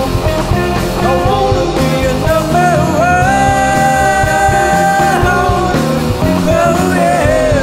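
Studio-recorded rock music from a guitar, bass and drums trio. A bending lead melody rides over the band, with one long held note about three seconds in that lasts about two seconds.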